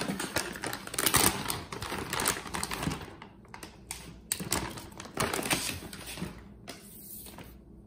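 Plastic Dentastix treat bag crinkling and rustling as hands dig in and pull a chew out. The crackling is loudest in the first few seconds, then thins and stops shortly before the end.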